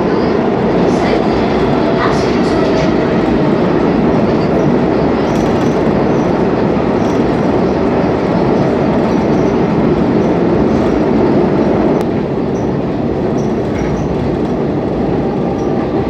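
Steady rumble of a moving train, heard from inside the carriage, with scattered faint clicks. The rumble eases slightly about twelve seconds in.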